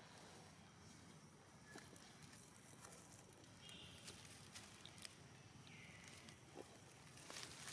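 Near silence: faint, scattered crackles of dry leaf litter as a young macaque picks through it and walks over it.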